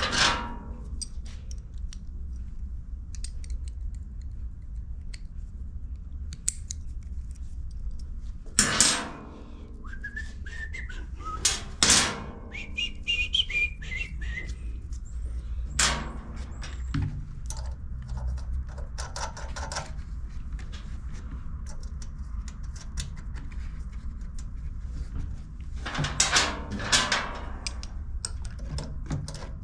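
Hand tools clicking and knocking against a small two-stroke generator's carburetor mount while a stud is worked loose, with several louder clanks over a steady low hum. A short rising whistle-like squeak comes around the middle.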